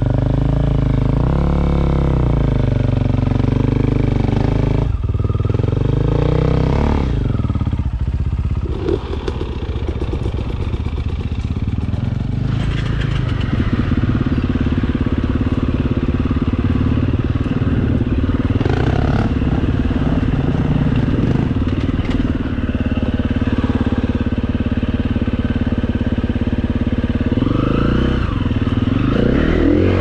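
Dirt bike engine running as the bike is ridden off-road, its revs rising and falling. About eight to thirteen seconds in, the engine chugs at low revs before picking up again.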